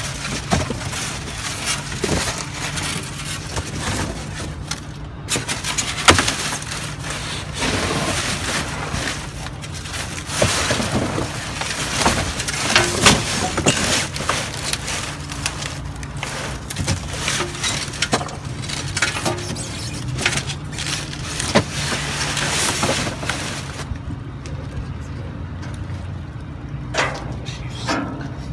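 Cardboard boxes and foam packing sheets being shifted and rummaged through in a dumpster: dense rustling, scraping and crackling with occasional knocks, easing off for the last few seconds. A steady low hum runs underneath.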